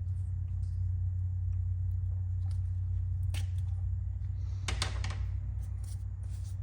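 Small sharp clicks and taps of the end cap being pried off the back of a Traxxas Velineon 3500 brushless RC motor, a few isolated ones then a quick cluster about five seconds in, over a steady low hum.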